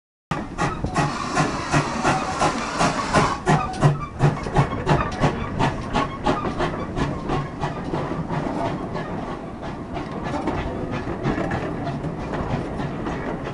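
GWR 0-6-0 pannier tank locomotive and its coaches rolling slowly past, with steam hissing and the wheels clicking over the rail joints in a steady run of clicks, loudest in the first few seconds as the locomotive goes by.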